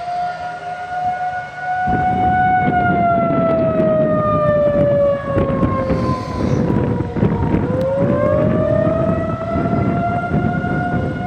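Outdoor tornado warning siren sounding one sustained tone. Its pitch sinks slowly and then climbs back up. Wind buffets the microphone from about two seconds in.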